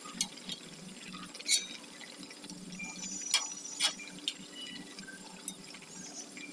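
Kitchen sounds: about half a dozen sharp clinks and taps of glass or dishware, some ringing briefly, scattered over a faint steady low hum.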